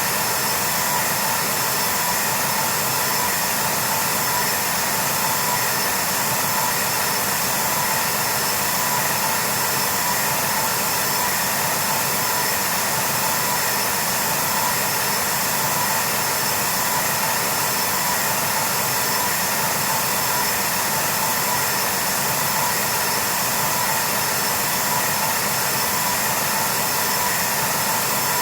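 Jet airliner engines running steadily: an even rush of noise with a high whine that holds one pitch.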